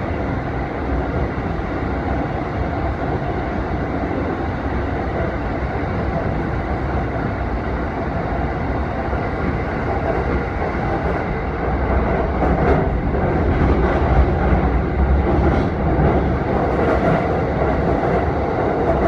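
Electric commuter train running along the track, heard from inside the carriage: a steady rumble of wheels on rail. It grows louder about twelve seconds in, with a few faint clicks.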